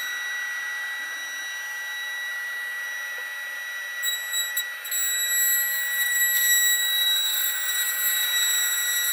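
Haas SR-100 CNC router's spindle whining at a steady high pitch while its half-inch bit trims the edge of the wooden scratch board to square the table. About four seconds in it gets louder and rougher.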